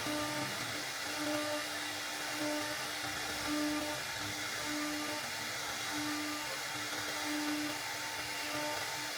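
Background music with a low note repeating about once a second, over a steady machine-like hiss.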